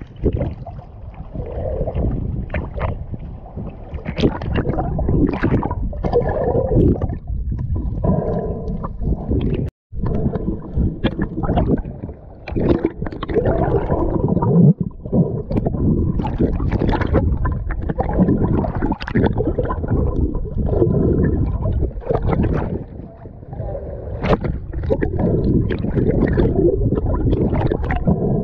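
Rough, rumbling water-and-wind noise buffeting the microphone, with splashes and gurgles, cutting out briefly about ten seconds in.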